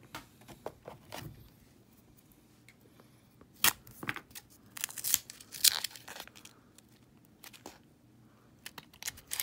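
Paper wrapper of a roll of half-dollar coins being torn open and crinkled, with a few sharp clicks and clinks of the coins.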